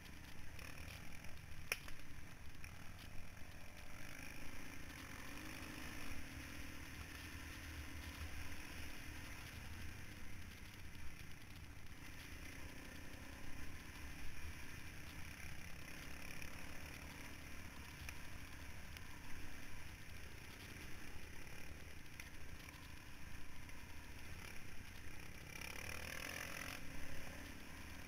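Single-cylinder four-stroke dirt bike engine running as it rides a rough trail, with irregular knocks and rattles from the bumps.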